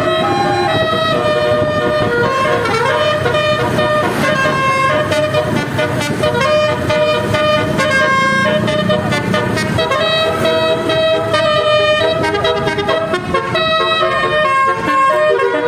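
Telolet basuri bus horn, a multi-tone air horn, playing a fast melody of changing notes without a break.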